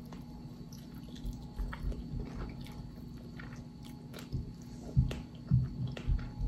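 A person biting and chewing barbecue ribs close to the microphone: scattered small clicks and soft thumps of chewing, with a few louder ones near the end.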